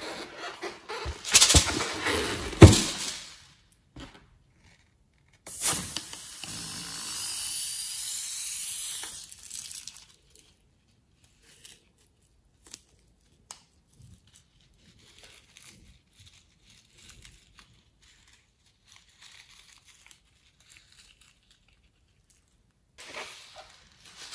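Slime being handled in a filled balloon over a bowl of glossy slime: sticky crackling and popping for the first few seconds, then a longer stretch of wet squeezing and hissing from about five to nine seconds in. After that come only faint scattered snips and ticks as the balloon is cut with small scissors, and the crackling returns loudly near the end.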